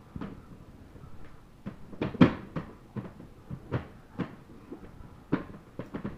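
Irregular knocks and rattles of a wire dog crate and its floor tray as a German Shepherd puppy turns and paws at its bedding inside, the loudest knock a bit over two seconds in. No howling.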